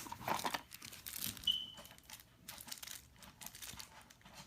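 Irregular crinkling and rustling of small plastic toy pieces and packaging being handled, with a brief high squeak about one and a half seconds in.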